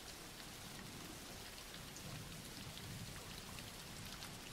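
Faint, steady rain falling: an even wash of rain noise laid under the narration as a background track.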